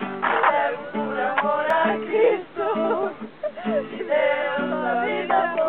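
A group singing a Christian worship song together.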